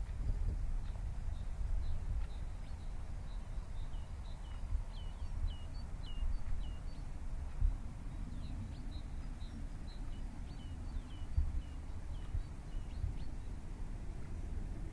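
Small birds calling over and over in short high chirps, about two a second, over a low, uneven rumble of wind on the microphone.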